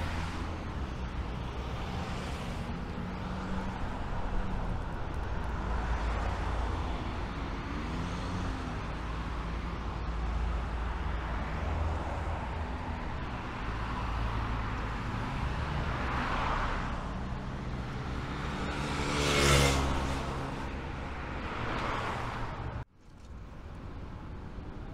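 Road traffic with cars passing steadily. One vehicle passes close about three-quarters of the way through with a falling engine note, the loudest moment. The sound drops out abruptly near the end and comes back quieter.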